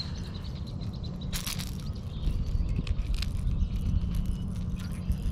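Handling noise: rustles and knocks as a freshly caught bluegill is gripped and unhooked from the popper close to the microphone. A bird chirps briefly at the start and again near the end.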